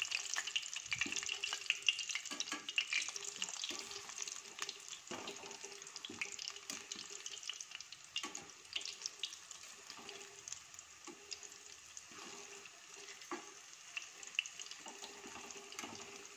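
Battered cauliflower fritters deep-frying in hot oil, with a steady sizzle full of small crackling pops that eases off gradually. A wire skimmer stirs them in the pan. The fritters are already cooked through and coloured orange.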